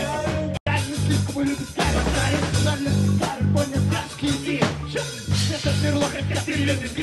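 A live band playing in a rehearsal room, with drums, bass guitar repeating low notes, and a vocalist singing into a handheld microphone. The sound cuts out for an instant about half a second in.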